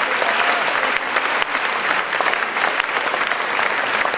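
A large audience applauding, dense steady clapping that holds at an even level.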